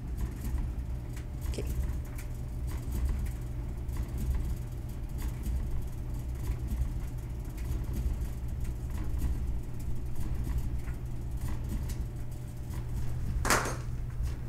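Steady low rumble of room background noise, with faint scattered clicks and rustles of objects being handled. A brief louder rustle comes near the end.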